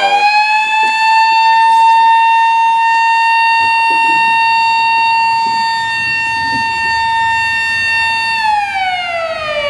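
Lock-and-dam warning siren: one loud wail that has just risen to a high steady pitch, holds it for about eight seconds, then slides down near the end. It warns that the lock is about to be emptied into the tailwater, turning the calm water into a torrent within about a minute.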